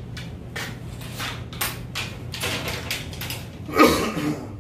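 Fishing rods knocking and clattering against each other as they are handled in a crowded rod rack: a string of light clicks and knocks, with a louder thump about four seconds in.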